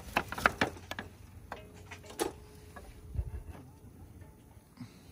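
A quick run of light, sharp clicks in the first second, then a few scattered ticks.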